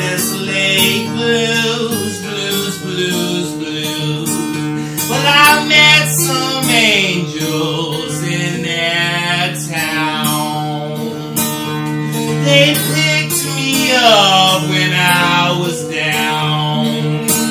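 A man singing with a strummed acoustic guitar, the voice sliding up and down between held notes over steady chords.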